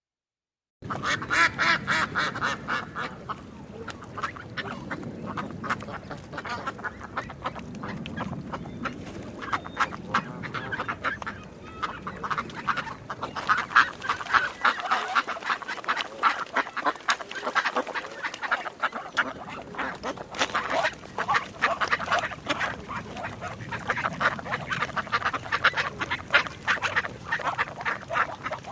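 A flock of ducks quacking, many short calls overlapping continuously; the calls start abruptly just under a second in.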